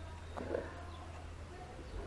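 A single short knock about half a second in as a small brushless motor is handled against its mount on the foam wing. Faint bird chirps and a low steady hum run underneath.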